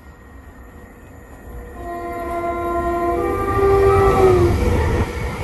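A Greater Anglia train sounding its horn as it approaches and passes: a lower note for about a second and a half, then a higher note for about a second, whose pitch drops as the train goes by. The rumble of the train grows louder under the horn.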